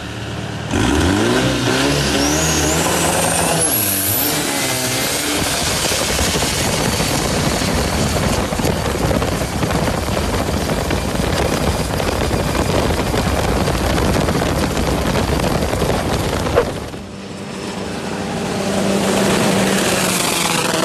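Long-tail boat's engine revving up hard, its pitch climbing over the first few seconds, then held at full throttle. About 17 seconds in it cuts to a quieter pass heard from the bank, rising again near the end.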